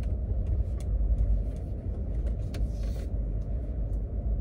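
Steady low rumble of a car heard from inside the cabin, with no voice over it.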